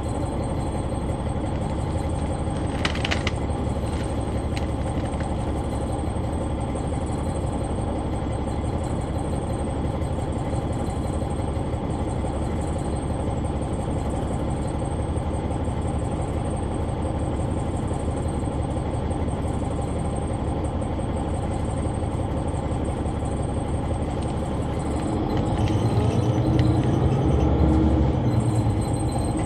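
Cabin of a Neoplan AN459 articulated diesel bus: its Caterpillar C9 ACERT engine runs with a steady low drone, with a brief high-pitched sound about three seconds in. Near the end the engine gets louder and rises in pitch as it pulls harder.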